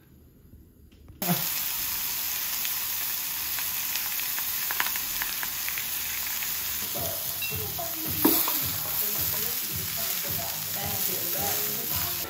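Beef steaks sizzling on a hot round grill pan: a steady, loud frying hiss that starts abruptly about a second in, with a few light knocks in the second half.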